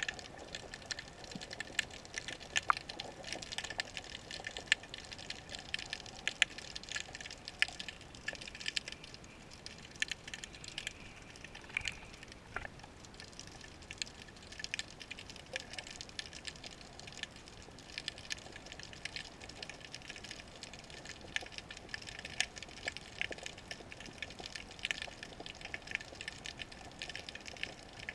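Underwater sound picked up by a GoPro in its waterproof housing: a steady, dense crackle of tiny clicks, with a few sharper, louder clicks scattered through.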